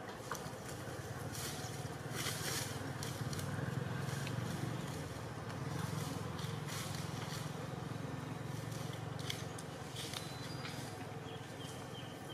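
Low engine rumble of a passing motor vehicle, swelling for several seconds and then fading, with scattered light clicks and a couple of short high chirps near the end.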